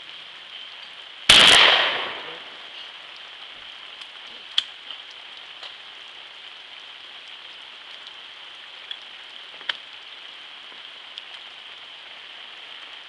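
A single 20-gauge shotgun shot a little over a second in, its report dying away over about a second. A few faint sharp clicks follow later, over a steady high hiss.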